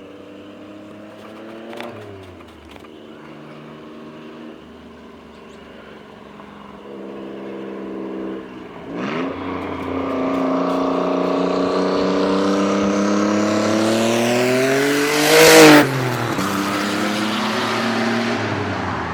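Nissan 300ZX's VG30ET turbocharged 3.0-litre V6 running at low revs with small blips of throttle, then pulling hard with the revs climbing steadily for several seconds. A loud rushing burst comes as the revs peak, about fifteen seconds in, and then the revs drop back to a steady lower note.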